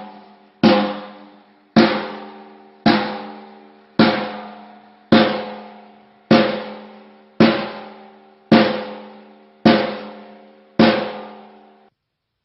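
A drum struck ten times at a steady pace, about once a second. Each hit rings out with a clear tone and fades before the next.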